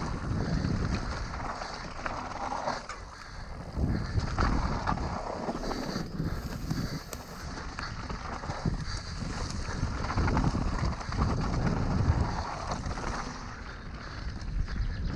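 Mountain bike descending a dirt singletrack at speed: wind buffeting the microphone over tyres rolling on dirt, with the bike rattling and knocking over bumps and roots.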